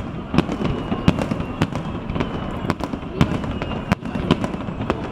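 Aerial fireworks going off in quick, irregular succession, about two to three sharp bangs and cracks a second over a continuous low rumble of further bursts.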